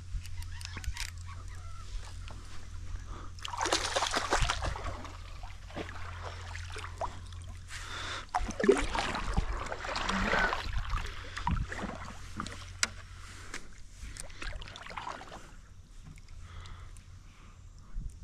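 Water sloshing and splashing around a small boat, in irregular bursts about four seconds in and again from about eight to eleven seconds in, over a steady low hum that fades about fourteen seconds in.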